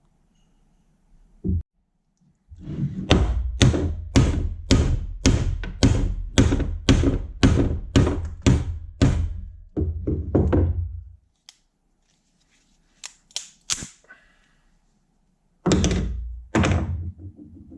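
A steady run of heavy hammer blows, about two a second for roughly eight seconds, each with a deep thud, followed by a few light clicks and two more blows near the end.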